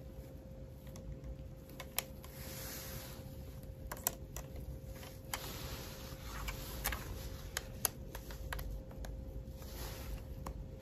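Light, irregular plastic clicks and taps with soft rustling, as a plastic alignment frame for a glass screen protector is fitted onto a phone and handled.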